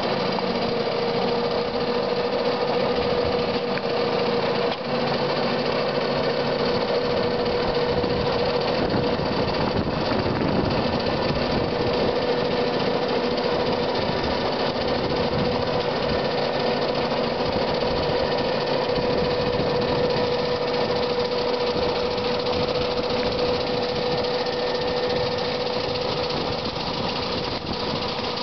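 Electric drive and snowblower motors of a 1974 New Idea EGT 150 (GE-built) electric garden tractor running under load: a steady whine over the rush of snow being thrown out of the snowblower chute.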